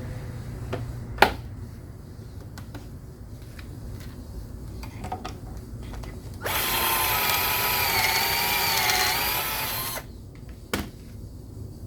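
Drill boring a pocket hole into a 3/4-inch board through a Kreg pocket-hole jig, a steady whine for about three and a half seconds in the second half, its pitch wavering slightly as it cuts, then stopping. Before it come a few light knocks and a sharp click about a second in.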